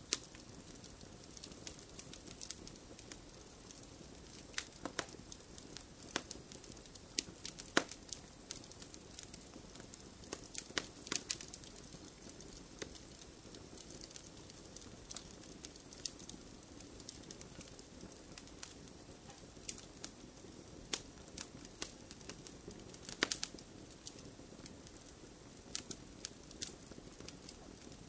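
Wood fire burning in a fireplace: irregular sharp crackles and pops over a low steady rush of flame, with a run of crackles in the first half and one loud pop near the end.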